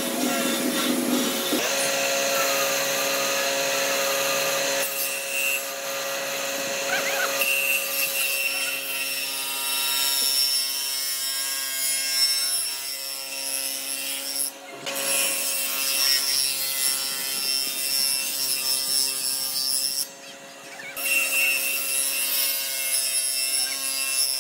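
Table saw running and cutting into pine boards fed on edge along the fence: a steady motor hum under the hiss of the blade in the wood. The sound drops out briefly twice.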